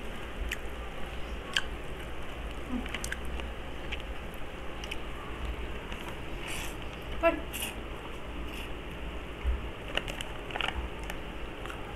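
Close-up eating sounds of instant cup noodles being slurped and chewed, with scattered small clicks and rustles.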